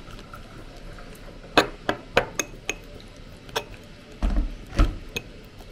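Kitchenware clatter: a quick run of sharp clinks of dishes and utensils, then a few heavier knocks about two-thirds of the way through.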